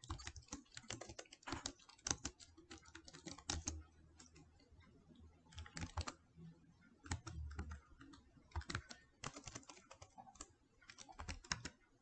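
Computer keyboard typing: faint, irregular keystrokes in short runs with brief pauses between them.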